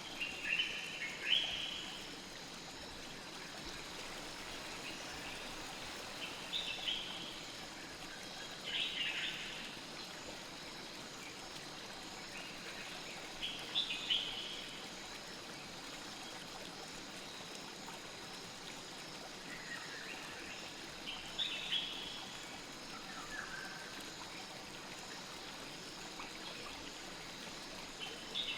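Steady flow of a river or stream, with short high chirping calls breaking in every few seconds, some in quick clusters of two or three.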